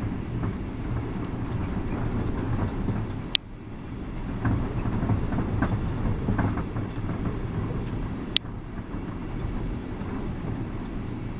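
Strong gusty wind buffeting the microphone in a steady low rumble, with two sharp clicks, one about a third of the way in and one about three-quarters of the way in.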